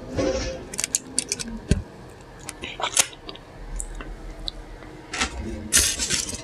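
Food wrapping crinkling and rustling as it is handled, with irregular sharp crackles and a few louder crinkles about five and six seconds in.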